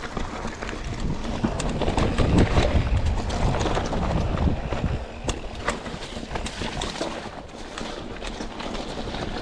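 Canyon mountain bike ridden over rough dirt singletrack: the tyres rolling over rocks and roots, with a stream of sharp rattles and knocks from the bike and a low rumble of wind on the GoPro. It gets louder and rougher for a couple of seconds, then eases off.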